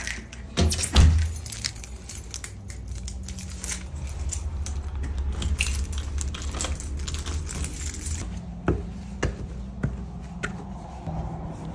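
A door shuts with a heavy thump, then a keyring jangles and clicks as a key turns in the deadbolt. A few footsteps tap on concrete near the end.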